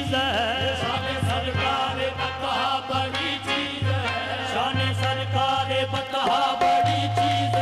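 Qawwali music: a singer's bending melodic line over steady rhythmic percussion. About six seconds in, a long steady held note takes over.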